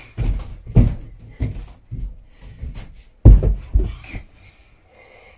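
A series of thumps and knocks from bare hands and feet pushing against a wooden door frame and walls while climbing between them, about eight in all, the loudest about three seconds in as he comes down to the carpeted floor.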